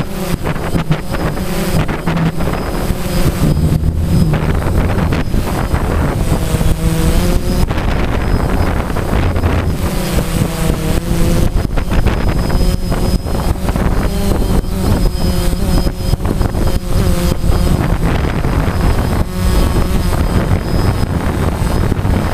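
DJI Phantom quadcopter's electric motors and propellers buzzing steadily, heard from the GoPro on the drone's body. Wind buffets the microphone with a heavy low rumble. The motor pitch wavers up and down as the drone manoeuvres.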